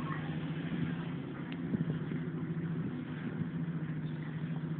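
A steady low mechanical hum, of the engine or motor kind, under an even outdoor hiss.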